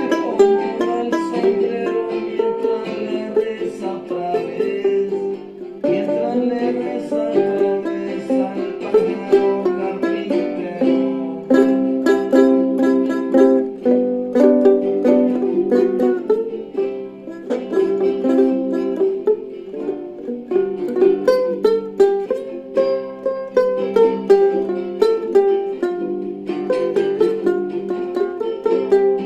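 A small plucked string instrument playing a quick run of picked notes and strummed chords, with no deep bass notes.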